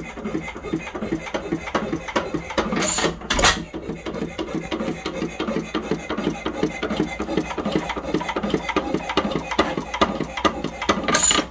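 1905 Domestic side-shaft hit-and-miss engine running: an even, rapid mechanical clatter from its gearing and valve gear, with a couple of louder strokes about three seconds in and several more near the end.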